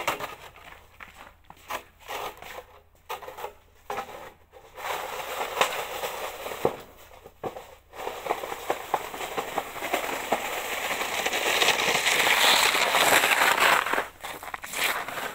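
Plastic snow shovel scraping and pushing wet, slushy snow across paving in repeated strokes, getting louder toward the end as the shovel comes close. Near the end come footsteps in the snow.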